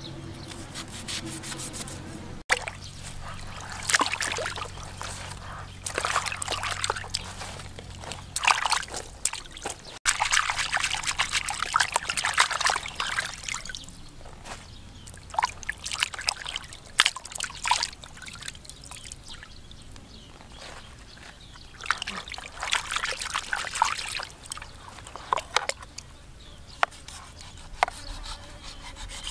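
Water sloshing, splashing and trickling as hands wash pieces of shark meat in a basin of water, in irregular bursts. Near the start a knife briefly saws through the shark on a wooden board.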